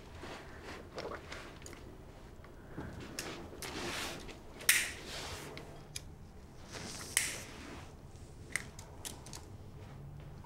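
Quiet room tone with faint scattered clicks and small handling noises, and two short hisses about five and seven seconds in.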